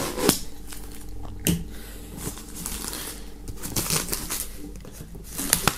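Plastic shrink-wrap film being slit with a small blade along the edge of a cardboard box, then pulled loose: crinkling and scratching with a few sharp clicks.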